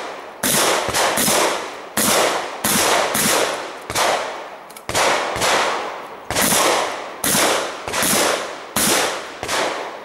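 Shotgun fired in a rapid string of loud shots, roughly one every half second to a second with a few slightly longer pauses, each shot echoing briefly. The string ends about half a second before the end.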